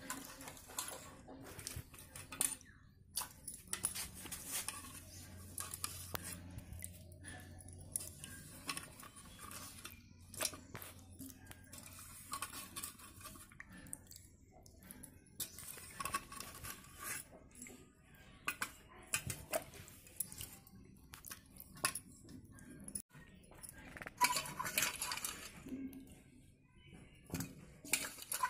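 Hands swishing and rubbing grapes in water in an aluminium pot: splashing with irregular clinks and clatter against the metal pot. Near the end a louder burst of clatter.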